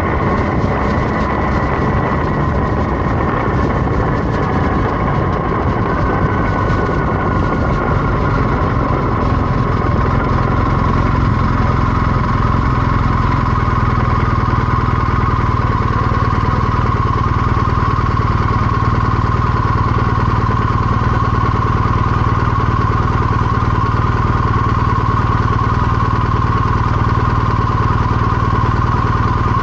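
BMW R 1250 GS boxer-twin engine running on the move. Its pitch falls over the first several seconds as the bike slows, then holds steady at low revs, and starts rising again at the very end.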